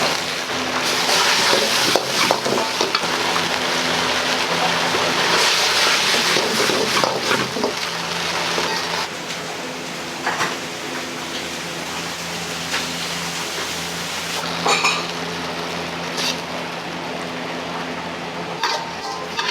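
Stir-frying in a wok: food sizzling loudly with a ladle stirring and scraping, then the sizzle quietens from about halfway and the ladle clanks against the pan several times. A steady low hum runs underneath.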